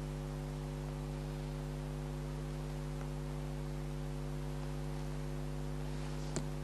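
Steady electrical hum of several fixed low tones under a constant hiss, with one brief click near the end.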